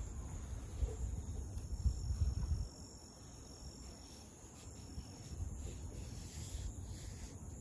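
Insects singing steadily in a thin, high pitch, with a low rumble loudest over the first couple of seconds.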